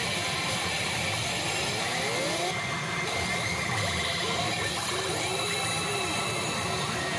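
Pachinko machines: a dense, steady clatter of steel balls with faint electronic tones and short gliding effect sounds over it.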